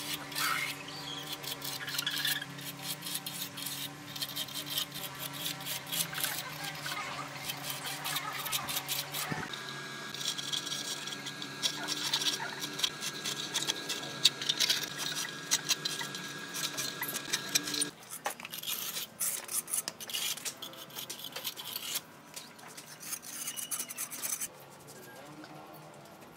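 Light clinks, taps and scrapes of a metal trim strip and a level being handled and pencil-marked against a concrete wall. A steady hum of held tones runs underneath for the first two-thirds and drops away near the end.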